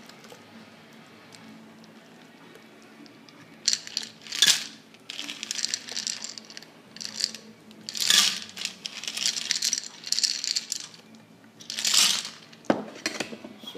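Ice rattling and clinking against the metal of a stainless-steel cocktail shaker in repeated bursts while the shaken drink is strained out into a martini glass. The rattling starts a few seconds in.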